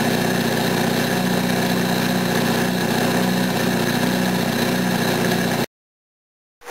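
NSU Ro80's twin-rotor Wankel rotary engine idling steadily after a restart, not yet warm. The sound cuts out abruptly about five and a half seconds in.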